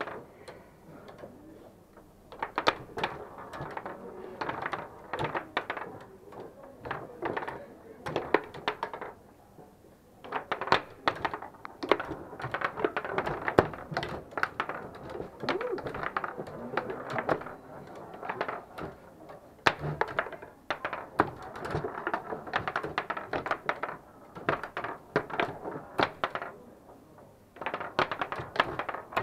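Foosball table in play: rapid clacks and knocks of the ball, rods and plastic players, coming in flurries with short lulls.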